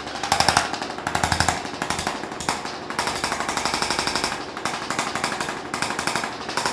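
Chiropractic tapper gun rapidly tapping against a patient's back, in short runs of fast even strokes with brief pauses between, used to help the spinal adjustment hold.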